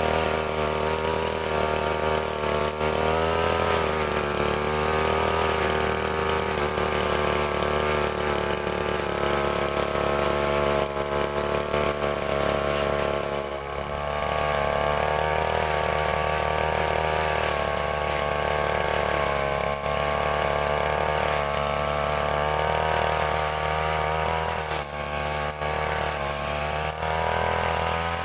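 Stihl FR 3001 backpack brush cutter engine running at speed with a metal weed trimmer head, its pitch wavering up and down as the load changes while trimming grass and weeds. It dips briefly about halfway through and again near the end.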